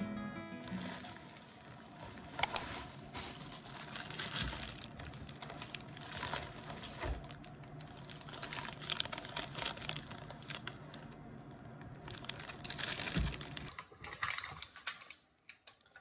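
Plastic shopping bags and food packaging rustling and crinkling in irregular bursts as groceries are unpacked, with a sharp click about two and a half seconds in and a couple of soft thuds as items are set down on the counter.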